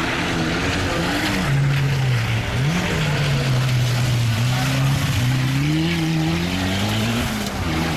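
Small rally hatchback's engine driven hard on a wet dirt stage, its note dropping and climbing again several times as the driver lifts, shifts and accelerates. Tyre noise on the muddy surface runs underneath it as the car passes close by.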